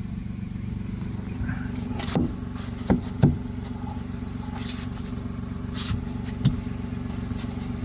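Suzuki DA63T's small three-cylinder engine idling steadily and evenly, running again after its tight valve clearances were set to cure a hard-starting, low-compression condition. A few sharp clinks or knocks stand out above it, twice about two to three seconds in and once near the end.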